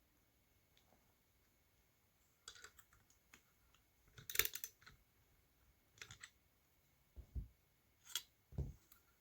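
Light clicks and clatter of small parts and tools being handled, in scattered bursts with a louder cluster about four seconds in, and two dull low thumps near the end.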